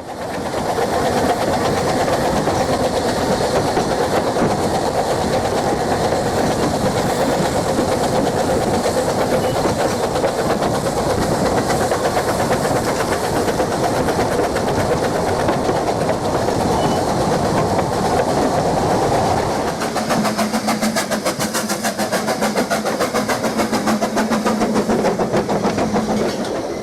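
A 16mm-scale battery-electric model locomotive running on garden track: its small can motor and gear drive whirr under a rapid, even clicking of the wheels and gears. About twenty seconds in, the sound changes and a steady hum comes in.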